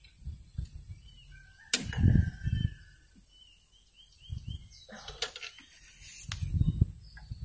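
Dull knocks and rumbles of hands working in an engine bay, loudest about two seconds in and again near the end, with a sharp click among them; a bird chirps repeatedly in the background.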